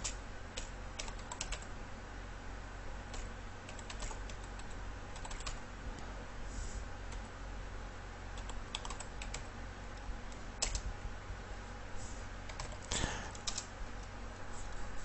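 Computer keyboard typing: keystrokes come in short, scattered runs with pauses between them, over a faint steady low hum.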